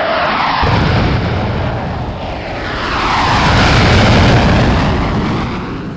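Sound-effect rumble with a sweeping, jet-like whoosh that falls and rises in pitch, swelling to its loudest about two-thirds of the way through.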